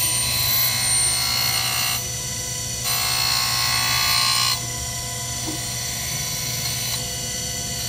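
Harig 612 surface grinder running steadily on its 3 HP spindle motor, with the wheel grinding a metal workpiece in passes: a hissing grind for about two seconds, a short lull, another pass of about a second and a half, and a fainter one near the end. The motor runs smoothly under load.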